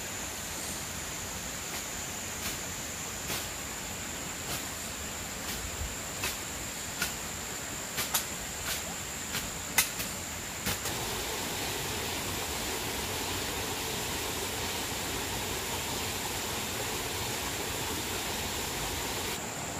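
Twigs and brush snapping in a scatter of sharp cracks as people push through dense undergrowth, over a steady hiss with a high-pitched whine. The cracks stop about eleven seconds in, and the hiss grows fuller from then on.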